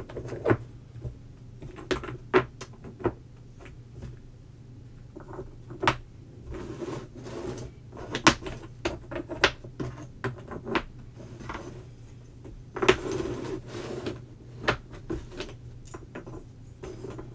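Old wooden puzzle pieces clicking and knocking against each other and the tabletop as they are handled and fitted together: irregular sharp taps, a few at a time, over a steady low hum.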